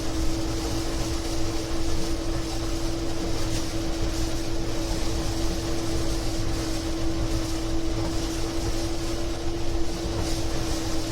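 Gleaner E combine running steadily while harvesting corn: engine and harvesting machinery, with a constant whine over a low rumble.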